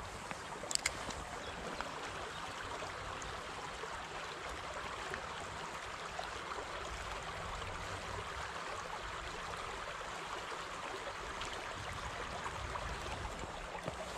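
Shallow stream running steadily over gravel, with a couple of short clicks about a second in.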